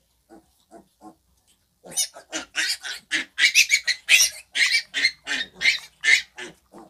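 Piglets giving a few soft grunts, then from about two seconds in a fast run of short, shrill squeals, some fifteen in a row, that stop shortly before the end.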